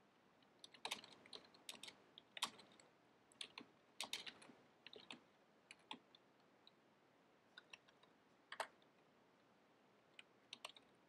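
Faint keystrokes on a computer keyboard typing a terminal command, in short irregular runs of clicks with pauses between them.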